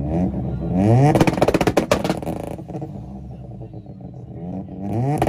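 Modified car engine idling, then revved up onto a two-step rev limiter: the revs climb and break into a rapid string of exhaust pops and bangs for about a second and a half before dropping back to idle. A second rev rises into more popping near the end.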